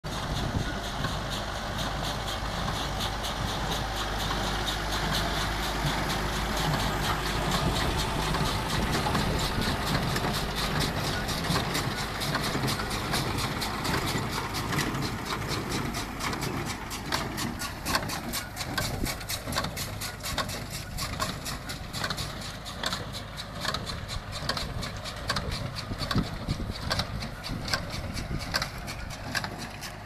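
Tractor engine running steadily while it drives a vintage Massey Ferguson small square baler picking up hay. The baler's working parts add a regular rhythmic knocking over the engine, clearest in the second half.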